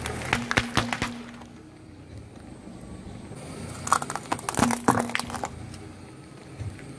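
A car tyre rolling over and crushing a row of small sealed plastic cups, a quick run of cracks and pops in the first second. About four seconds in comes a second cluster of cracks and crunches as the tyre flattens a small metal cup.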